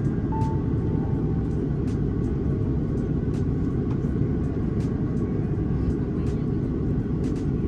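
Steady low roar inside a jet airliner's cabin in flight: engine and airflow noise heard from a window seat beside the wing.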